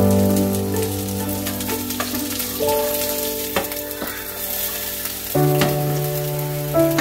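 Green-onion pancake batter sizzling in hot oil in a non-stick frying pan, with a few light taps and scrapes of a metal spatula. Background music with sustained notes plays over it.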